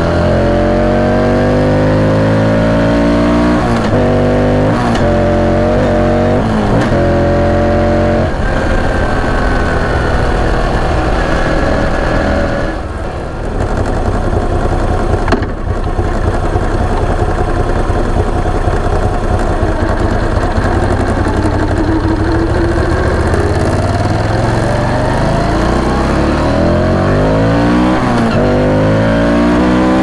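Moto Guzzi V85 TT's air-cooled transverse V-twin engine and exhaust under way. The pitch falls as the bike slows, with several short blips on the downshifts, settles low and rough near a stop, then climbs again in repeated rises as it accelerates up through the gears. A single sharp knock comes about halfway through.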